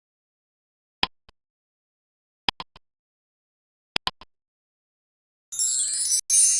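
Countdown-timer sound effect: a sharp tick with a small double click after it, about every second and a half over silence. Near the end a bright, high shimmering chime comes in, the cue for the answer reveal.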